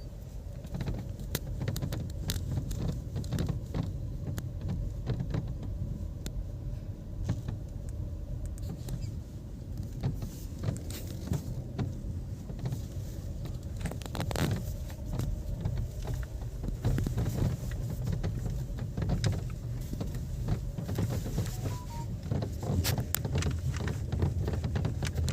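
Irregular rattles and clicks from a Volkswagen's door panels and door beading over the steady low rumble of the car driving, heard inside the cabin. This is the door rattle the car has in all its doors.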